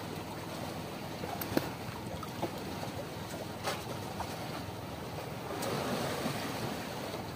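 Open sea washing against an outrigger boat's hull and bamboo outriggers, a steady wash with wind on the microphone, swelling briefly about six seconds in. A few faint knocks sound over it.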